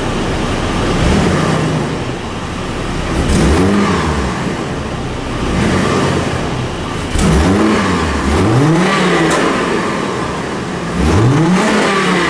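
Truck engine, just cold-started and still on its stock muffler, revved in several short blips, each rising and falling in pitch. It is not too loud.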